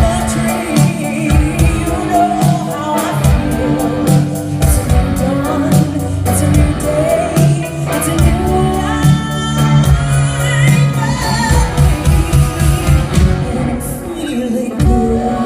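Live band playing a soul song, with drums and bass under a singer's wordless vocal runs.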